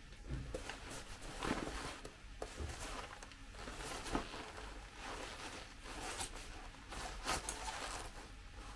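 Heavy fabric rustling and swishing as a garment is handled close to a microphone, in a string of short, irregular strokes: cloth-movement foley recorded to a film scene.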